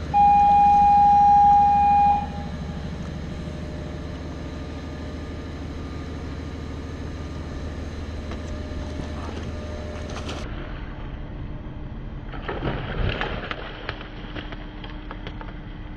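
A loud steady beep for about two seconds at the start, then a low steady rumble; about twelve seconds in, water splashing hard as a hooked king mackerel thrashes at the side of the boat while it is gaffed.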